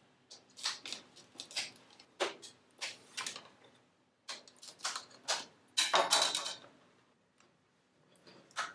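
Transparent plastic retail packaging being handled and pried open: irregular short clicks and crinkles, with a longer, louder crackle about six seconds in.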